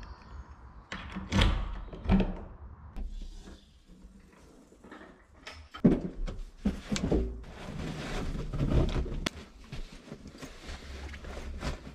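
A key working a lock and a wooden door being opened, with a few sharp knocks. About six seconds in a loud thud starts a run of clattering, knocking and rustling as bags and gear are picked up and moved about.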